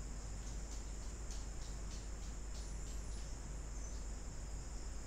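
Steady background noise: a low mains-like hum under a high, steady whine, with a few faint high ticks.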